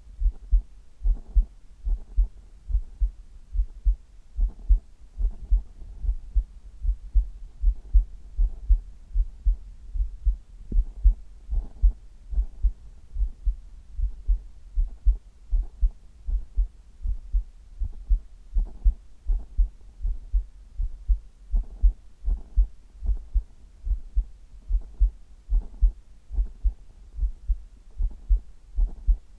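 A human heartbeat, close-miked on the chest: a steady, even lub-dub of deep, dull thumps.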